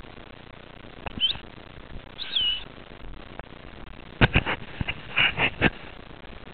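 Two short, high whistled calls, each a quick swoop in pitch, about a second apart, followed by a cluster of sharp knocks and clicks near the end.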